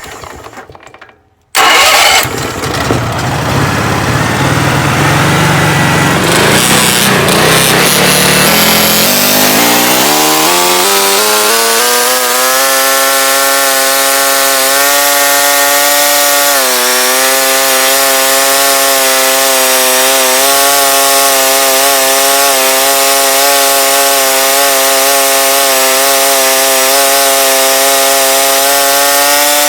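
Sawmill's gasoline engine starting with a sudden loud burst, then rising steadily in pitch over several seconds up to high speed and running on at a steady pitch, ready for the next slab cut.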